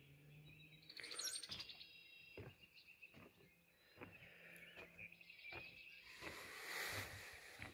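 Faint birdsong at dawn: scattered short chirps and trills from songbirds. A brief soft rush of noise rises about six seconds in.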